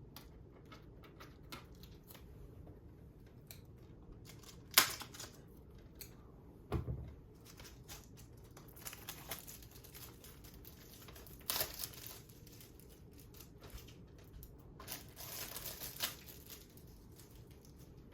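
A DVD case being unwrapped and handled: plastic shrink-wrap tearing and crinkling, with a few sharp plastic clicks (the loudest about five seconds in) and one dull thump about seven seconds in.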